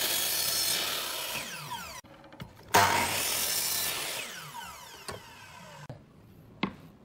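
Miter saw cutting through wooden stock twice, the second cut starting abruptly a little under three seconds in. After each cut the blade's whine falls in pitch as it spins down. A single sharp click comes near the end.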